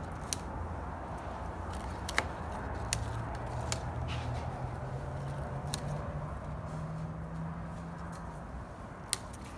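Steady low hum with a handful of short, sharp clicks scattered through it; a faint higher hum joins about three seconds in and fades out near the end.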